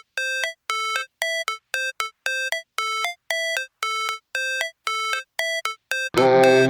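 Background music: an electronic intro of short, clipped synth notes, about two a second with gaps between them. A full beat with bass comes in about six seconds in.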